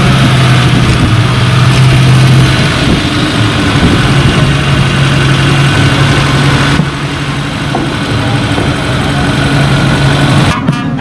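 Open jeep's engine running as the jeep is driven slowly past, with a steady low hum that breaks off briefly about three seconds in.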